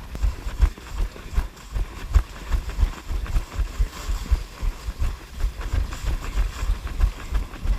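Running footfalls on a trail: dull thumps about three times a second, picked up through a camera jostling in the runner's hand.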